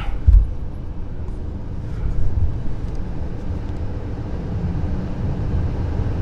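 Inside a moving car: a steady low rumble of engine and road noise, with one low thump shortly after the start.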